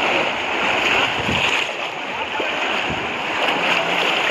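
Steady splashing and sloshing of shallow pond water as many people wade through it, plunging bamboo cone fish traps (polo) into the water.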